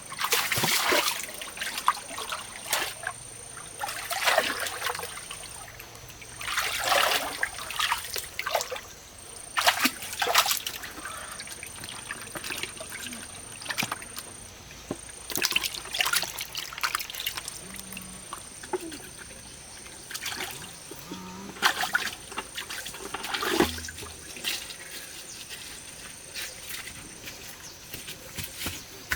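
Water splashing and trickling in irregular bursts every few seconds.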